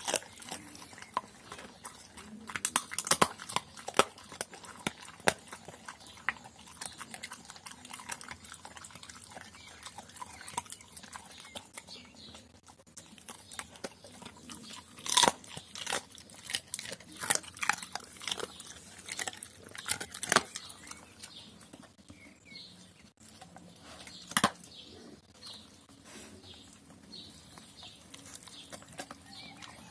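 Doberman pinscher eating a meal of rice and meat: irregular chewing and crunching, with scattered sharp clicks, the loudest about 3, 15, 20 and 24 seconds in.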